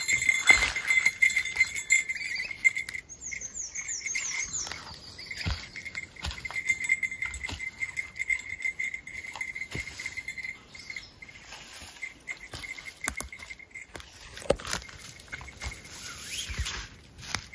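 Small jingle bell clipped to a hoisted bear-bag food sack, tinkling continuously as the bag rises and swings on its rope, until it dies away about thirteen seconds in. A few high falling chirps come about three seconds in, and there are light thuds and rustles of handling.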